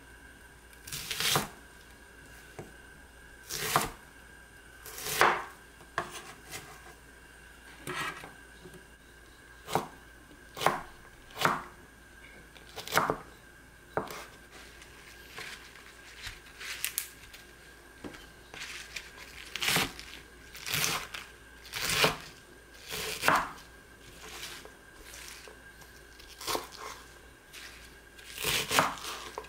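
Kitchen knife (a crinkle-cut blade) slicing onion, chili peppers and cabbage on a bamboo cutting board: separate unhurried cuts, each a short crunch ending in a knock on the board, about one a second and unevenly spaced.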